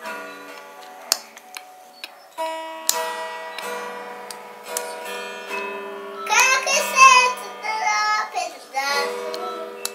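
A young child strumming and plucking an acoustic guitar, with held notes ringing, and singing along in short phrases about six seconds in and again near the end.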